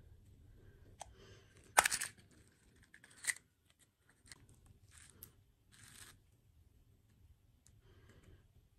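Packaging being torn open and handled: a sharp, loud tearing crackle a little under two seconds in, another short one at about three seconds, then softer rustles and small clicks.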